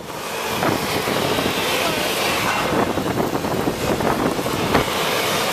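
Steady rumble of a vehicle with wind buffeting the microphone, and faint voices in the background.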